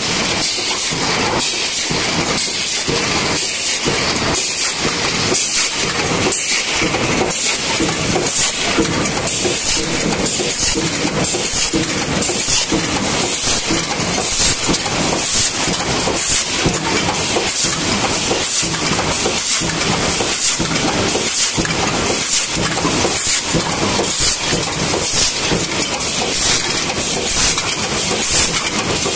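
Tin-can making machinery running in a steady cycle: a hissing stroke repeating about once a second over continuous machine noise.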